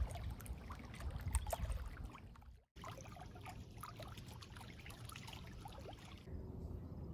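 Faint lake water lapping and trickling, with scattered light clicks. The sound cuts out for an instant about two and a half seconds in.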